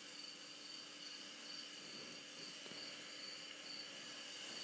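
Faint insect chirping, evenly repeated at about two chirps a second over a steady high-pitched buzz.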